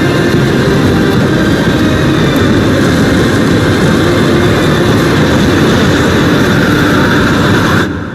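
Blizzard wind blowing hard, a loud, steady rush of noise that cuts off suddenly near the end and then fades away.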